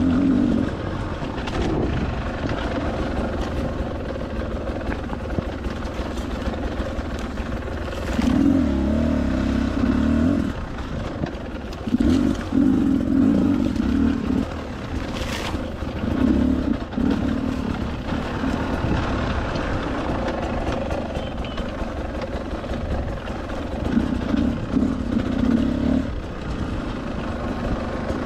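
Beta 300 RR two-stroke enduro motorcycle ridden off-road: the engine rises in short throttle bursts every few seconds between steadier running. A single sharp knock comes about halfway through.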